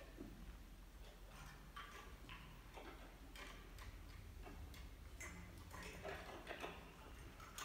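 Near silence in a concert hall with faint, scattered clicks and rustles as brass players shift and handle their instruments between pieces.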